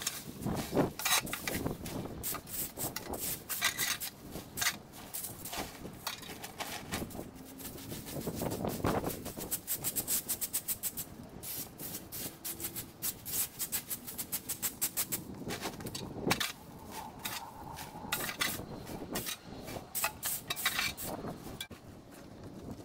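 A garden rake and shovel scraping over stone paving and through dry fallen leaves, in quick repeated strokes with knocks as the tools hit the stones.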